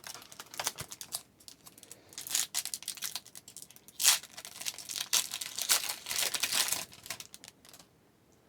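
A trading-card pack wrapper being torn open and crinkled by hand: a run of irregular, crackling tears and rustles that stop about a second before the end.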